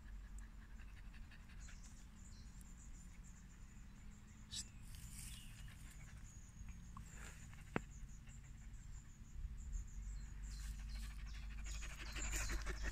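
Kerry blue terrier panting close by, getting louder near the end, over a faint low rumble.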